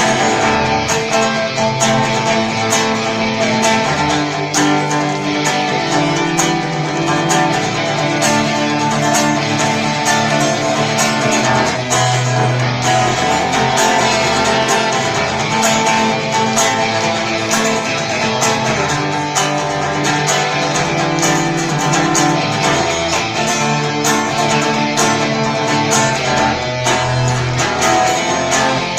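Guitars playing an instrumental break between verses: strummed chords over sustained low notes that change every couple of seconds.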